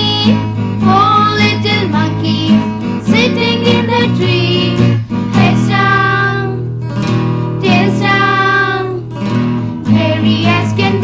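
A woman and children singing a children's poem set to a simple tune, with sustained instrumental accompaniment underneath.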